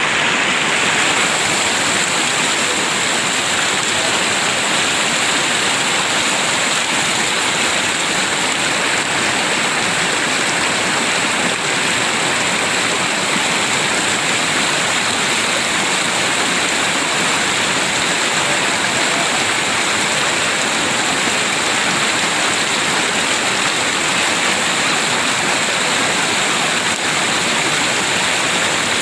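River water rushing and splashing in a steady, loud torrent.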